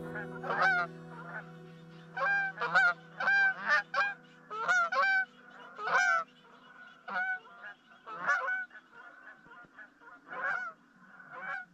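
Geese honking: a long run of short calls, about two a second at first, thinning out toward the end. A held music chord fades out under the first few seconds.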